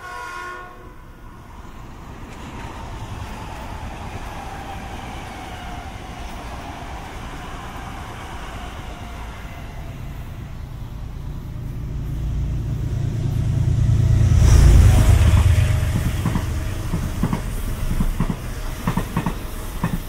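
Passenger train on the Hudson Line. A horn note cuts off within the first second, then the train approaches with a slowly falling whine and a building rumble, passes loudest about three-quarters of the way through, and its wheels clatter over rail joints near the end.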